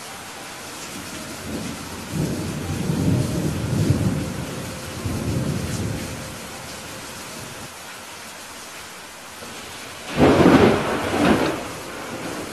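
Steady rain with thunder: a low rolling rumble builds about two seconds in and lasts several seconds, then a sudden, louder and sharper thunderclap comes about ten seconds in.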